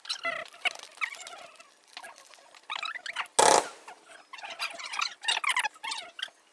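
Firework display recorded and played back six times faster: a dense patter of short chirps and crackles, with one loud burst about three and a half seconds in.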